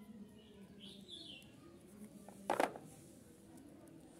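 Faint bird chirps in the background, and about two and a half seconds in a short clatter of plastic toy animals knocking together as a hand reaches into the pile.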